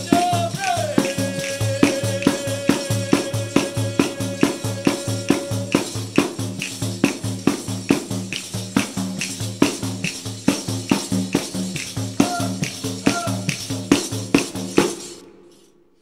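Background music with a steady percussion beat and a long held note in the first few seconds, fading out near the end.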